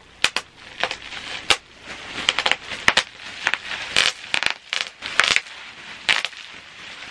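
Bubble wrap being squeezed and crumpled by hand, crinkling with irregular sharp pops and crackles.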